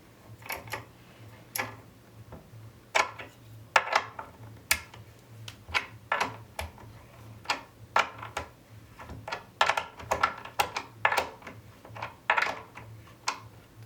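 Skate tool turning a longboard truck's kingpin nut, with irregular sharp metal clicks about one or two a second as the nut is tightened.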